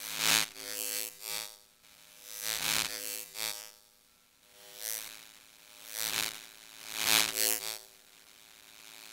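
Electric buzzing sound effect, like a neon tube flickering on, heard as a series of irregular buzzing bursts with short gaps between them.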